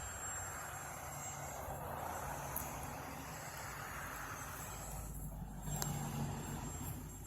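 A vehicle passing by: tyre and road noise swelling and then fading over the first five seconds, followed by a low engine rumble near the end.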